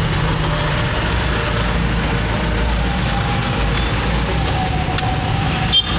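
Truck engine running and road noise heard from inside the cab while driving, with a single short knock near the end.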